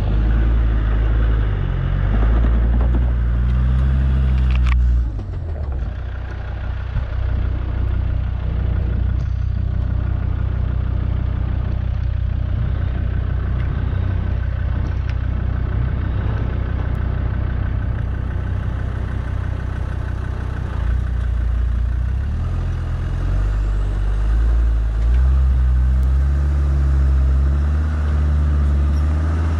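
Off-road 4x4 vehicle's engine running as it drives, its pitch climbing about two to four seconds in, dropping about five seconds in, and climbing again near the end.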